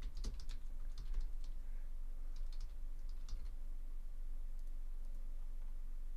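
Irregular clicks of typing on a computer keyboard, most of them in the first three and a half seconds and only a few faint ones after, over a steady low electrical hum.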